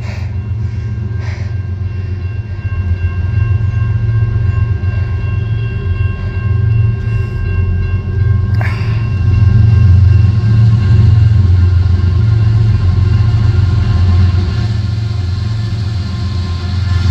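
Diesel freight locomotives of a CSX empty coal train rumbling as they pull through a rock tunnel and out into the open, the deep engine drone growing louder over the first several seconds and then holding steady.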